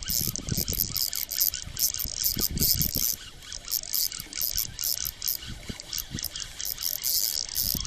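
Fishing reel being wound, a fast ratcheting click that keeps stopping and starting, with a few dull knocks of handling underneath.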